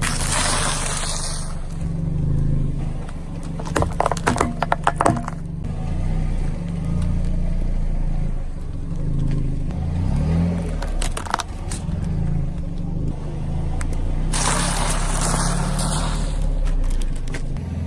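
Car engine running slowly as the tyres roll over and crush objects, with a quick run of crackling and crunching about four seconds in. Two hissing, noisy bursts come at the very start and again about fourteen seconds in.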